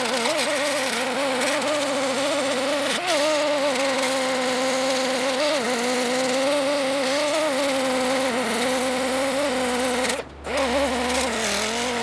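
Handheld grinder running on sheet metal: a steady motor whine over a grinding hiss, its pitch dipping and recovering as it is pressed into the work. It stops briefly about ten seconds in, then starts again.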